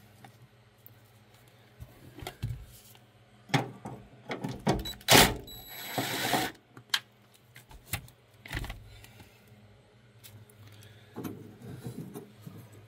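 Small cordless power tool running briefly a little past halfway, with a thin motor whine as it spins a socket on a bolt. Scattered clicks and clunks of the tool and metal parts being handled come before and after.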